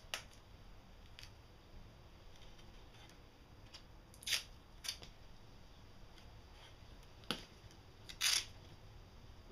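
Painter's tape being pulled from its roll and torn off in a handful of short, separate rasps, the longest two about halfway through and near the end, with a sharp click between them.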